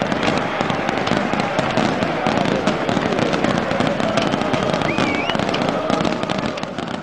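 A dense, rapid crackle of firecrackers and fireworks going off in the stands over steady crowd noise, with a short wavering whistle about five seconds in.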